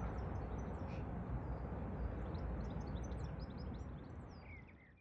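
Outdoor ambience: many small birds chirping over a steady low rumble, fading out near the end.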